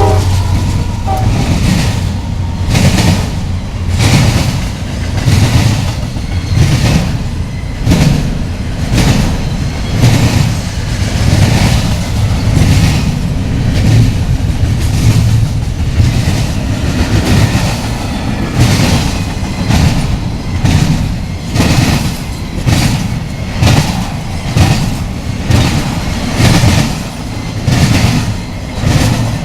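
A train passing close by: a deep, loud rumble with wheels clattering over the rail joints in a steady rhythm of about one beat a second.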